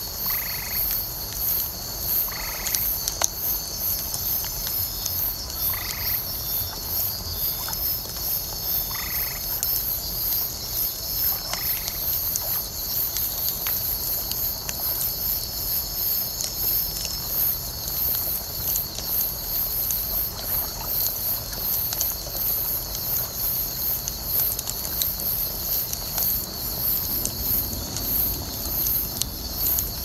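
A night chorus of insects keeps up throughout: a steady high shrill and a very high, fast-pulsing trill. Short frog calls come about five times in the first half. Beneath them a wood bonfire crackles with scattered small pops over a low rush.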